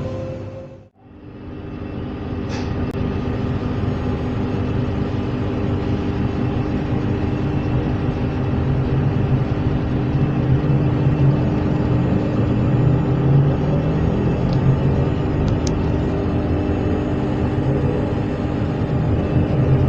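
Z 20900 electric multiple unit running: a steady rumble with several steady motor tones over it, growing slightly louder. The sound drops out briefly about a second in, then resumes.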